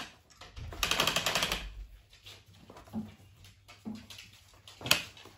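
Rigid heddle loom's ratchet clicking rapidly as the warp beam is cranked round to advance the warp, for about a second; a single sharp click follows near the end.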